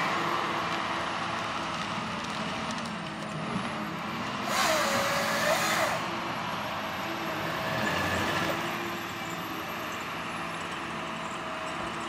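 Heavy logging machines' diesel engines running steadily, with a loud hiss for about a second and a half near the middle.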